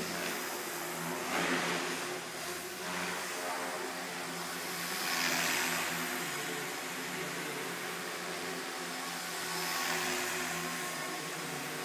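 MSH Mini Protos electric RC helicopter in flight: the steady whine of its brushless motor and rotors. A rush of blade noise swells about a second and a half in, again around five seconds in, and near ten seconds.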